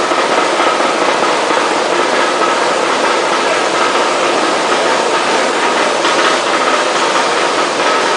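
Sauce-sachet pasteurization machine running: a steady mechanical noise with a faint constant whine.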